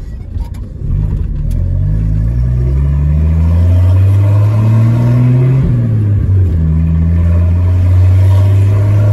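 Chevrolet A20 pickup's six-cylinder alcohol engine pulling the truck along, heard from inside the cab. Its pitch climbs steadily, dips briefly about halfway through, then rises again and holds steady.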